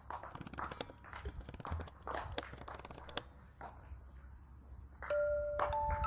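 Footsteps and small clicks on pavement, then about five seconds in a chiming melody of steady bell-like notes starts, overlapping one another like a glockenspiel or chime tune.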